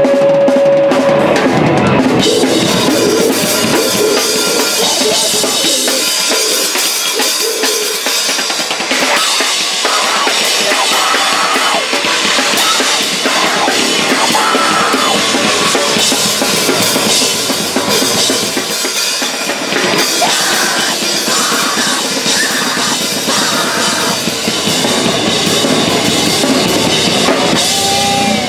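Live rock band playing loud, heard from right beside the drum kit, with cymbals washing over everything and bass drum and snare driving underneath.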